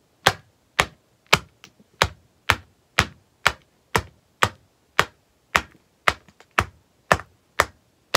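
Acorn shells cracking one after another under blows from the end of a firewood log: a sharp crack about twice a second in an even rhythm, with a few faint shell snaps in between.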